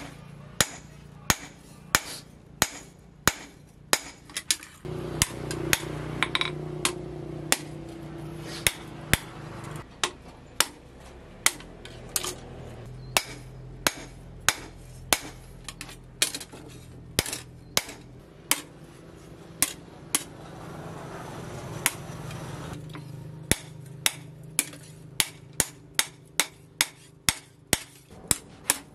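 Blacksmith's hand hammer striking a hot curved steel knife blade, cut from a disc plough, against a cylindrical steel anvil at an even pace of about two ringing blows a second. A low steady hum sits behind the blows for much of the middle.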